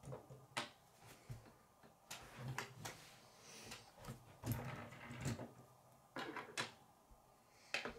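Plastic K'nex pieces clicking together and the model knocking on a wooden tabletop, a scatter of about eight sharp clicks and taps.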